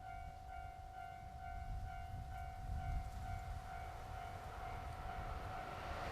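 Japanese railway level-crossing warning bell ringing, an electronic ding repeating two to three times a second over a low rumble. Right at the end the noise of an approaching train begins to rise.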